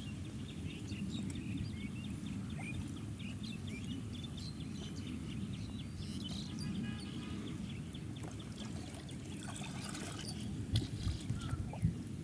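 Pond water lapping and sloshing around a person moving through it chest-deep while feeling for crabs by hand, with a few sharper splashes near the end, over a steady low rumble.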